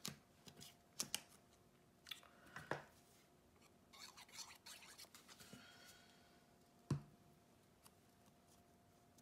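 Faint paper-crafting handling sounds: paper pieces and card tapped and shuffled on a tabletop, and a glue stick rubbed across paper about four seconds in. One sharper tap comes near the end.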